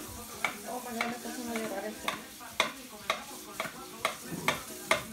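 Chef's knife chopping an onion, the blade knocking on a granite board in sharp, even strokes about twice a second.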